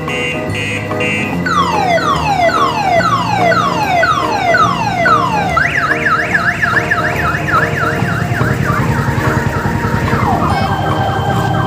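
Loud electronic siren of an odong-odong mini train cycling through its tones. First comes a string of falling wails, about two a second. About six seconds in it switches to a fast up-and-down yelp, about three a second, and it changes tone again near the end.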